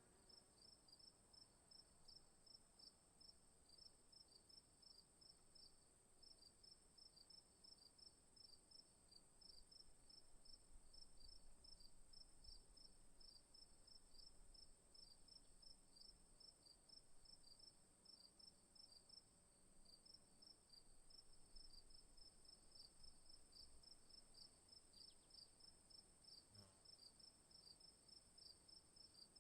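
Crickets chirping faintly: a continuous high-pitched trill under rapid, evenly repeated chirps that keep going without a break.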